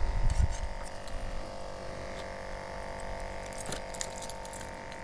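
Steady hum from nearby construction machinery, with a brief rumble of wind on the microphone at the start and scattered light clinks and ticks.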